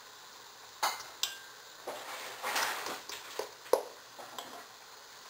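Metal fork scraping and clinking against a stainless steel pan as it breaks up ground meat frying in oil, over a faint sizzle. Several sharp clinks come at irregular moments, with a longer scrape about halfway through.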